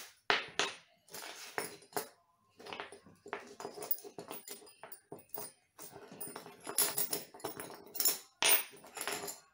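Screw being turned by hand with a screwdriver into a bolt-on guitar neck's heel, a run of short, irregular creaks and clicks that grow louder near the end.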